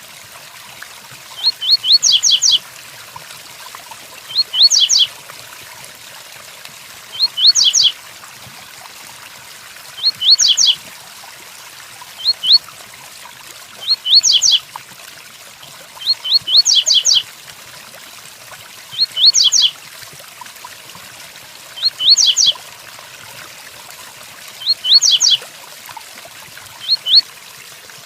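Double-collared seedeater (coleiro) singing the 'tuí tuí fibra' song: short phrases of a few quick high sweeping notes, repeated about every two and a half seconds. A steady hiss of rain runs underneath.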